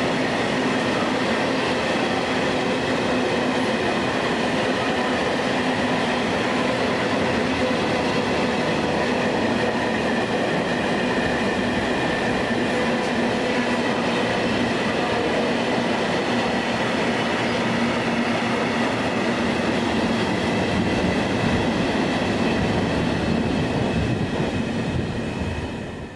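A train passing close by: a steady, loud rumble of wheels on the rails with several steady whining tones over it, dying away near the end.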